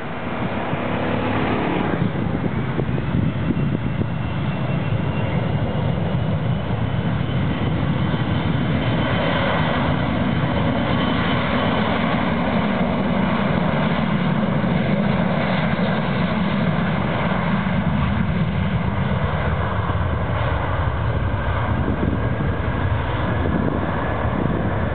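Boeing 737-500's twin CFM56 turbofan engines spooling up to takeoff thrust, with a rising whine about two seconds in. The engines then run loud and steady as the jet accelerates along the runway on its takeoff roll.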